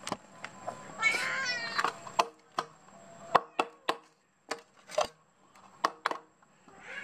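A cat meows once, about a second in, then a run of sharp irregular clicks as the cats chew scraps of chicken.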